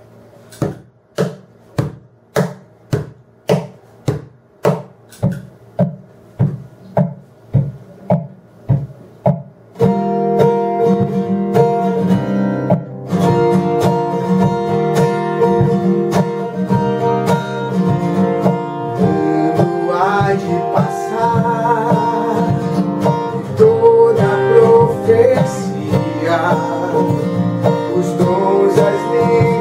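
Acoustic guitar: for the first ten seconds a steady pulse of short plucked strokes, about two a second, then full strummed chords. A man's voice joins, singing a slow ballad, about twenty seconds in.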